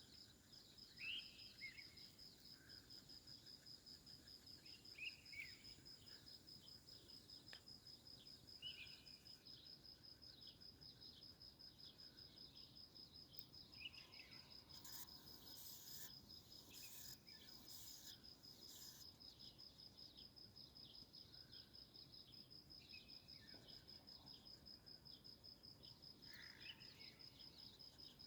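Faint insect chirping in an even, rapid pulse that never lets up, with short bird calls now and then and a few brief high rustles about halfway through.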